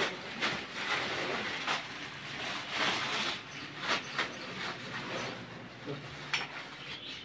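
Crumpled newspaper packing being pulled off by hand and tossed aside: an irregular crinkling rustle of paper with short sharp crackles.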